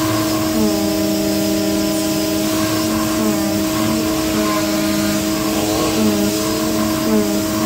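CNC flatbed cutting machine running while cutting thick PVC sheet: a steady machine hum with short motor whines rising and falling in pitch as the cutting head moves.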